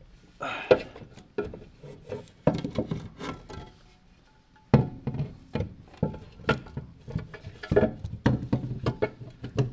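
Irregular metal clunks, knocks and scrapes as a transmission bell housing is worked into place against the engine.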